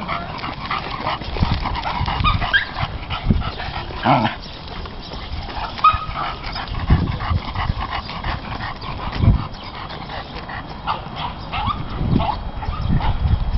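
Dogs making short, high whining and yipping sounds, some rising in pitch, over occasional low thumps.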